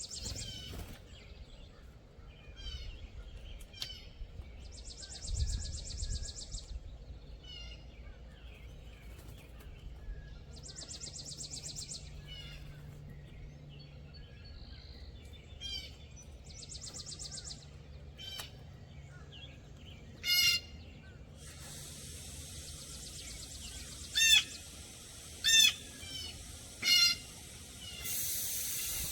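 Wild songbirds singing and calling: a high buzzy trill of about a second and a half repeats every five or six seconds, with short chirps between. In the second half come four loud, sharp calls close by, and a steady hiss starts near the end.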